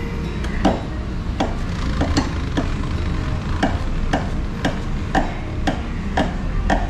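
Car's factory jack being cranked up by hand with its hooked rod, a metallic click about twice a second as the handle turns, lifting the car.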